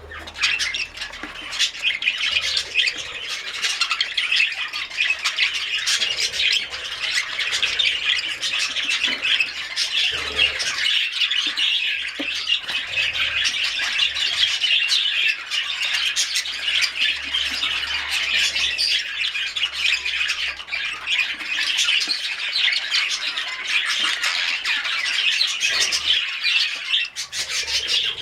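Many budgerigars chattering and squawking together, a dense, steady flock chatter.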